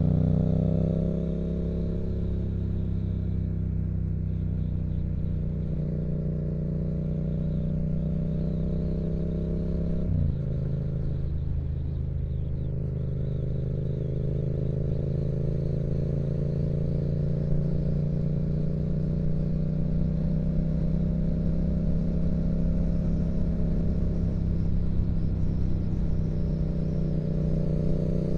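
2016 Yamaha MT-07's 689 cc parallel-twin engine through a Yoshimura exhaust, running under way. The revs fall just after the start and then hold steady. About ten seconds in they drop sharply and climb back gradually over the next few seconds, then hold a roughly steady cruise.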